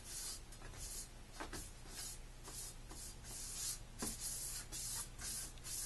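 A hand rubbing and pressing along the edge of a marker board panel in its frame: quick scratchy strokes, about three a second, with a couple of light knocks.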